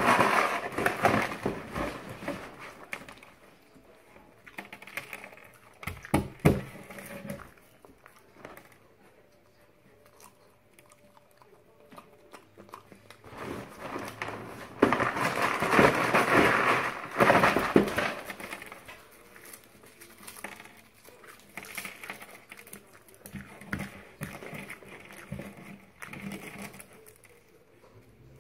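Chex cereal rattling inside its cardboard box as it is shaken and poured out onto a wooden tabletop in several bouts, the longest and loudest about halfway through, with pieces clattering onto the table.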